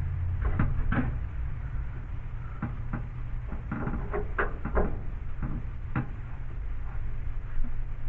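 Irregular small clicks and knocks of hardware being handled while a light fixture is screwed onto its electrical box, busiest in the middle.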